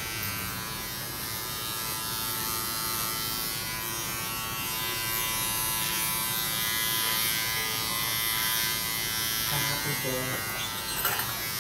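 Electric hair clipper buzzing steadily as it trims hair over a comb.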